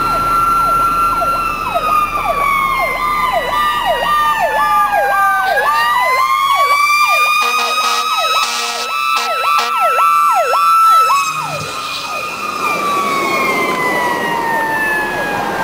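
Fire engine's sirens. One sweeps rapidly up and down about twice a second, a yelp, and stops about two-thirds of the way through. Under it a second siren wails slowly down, climbs back up and falls away again.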